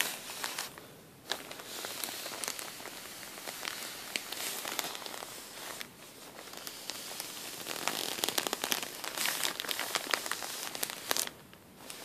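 Thin plastic bag packed with cotton balls being pressed and squeezed by hand: continuous soft crinkling of the plastic with many small crackles, easing briefly about a second in and again near the end.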